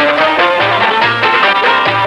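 Instrumental interlude of an Arabic song: a quick, busy melody line over a low bass note that recurs in short, regular pulses.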